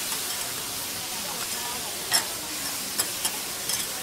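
Lobster and mushrooms sizzling on a flat steel griddle with a steady hiss, while a metal spatula scrapes and stirs. Several sharp clicks of the spatula striking the plate come in the second half, the loudest about two seconds in.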